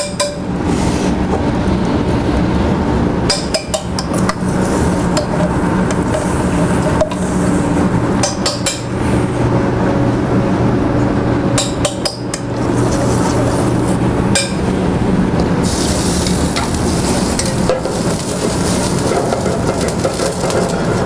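Curry sauce sizzling in a stainless steel saucepan on a gas burner while a metal spoon stirs it and clinks against the pan now and then, over a steady low hum. The sizzle grows louder for a couple of seconds in the second half.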